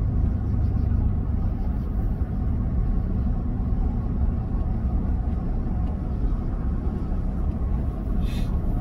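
Steady low rumble of a car on the move, heard inside the cabin, with a brief soft hiss near the end.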